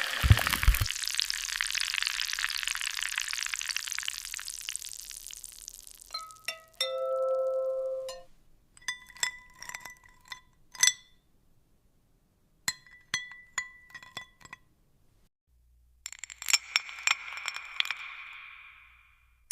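Glass clinking and tapping: groups of sharp clinks that ring at a few fixed pitches, after a hissing rush that fades out about six seconds in and a brief ringing tone. Another hiss rises under a run of clinks near the end.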